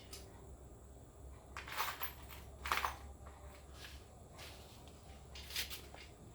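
Four short scraping, clicking handling sounds, the loudest two about two and three seconds in, over a low steady hum.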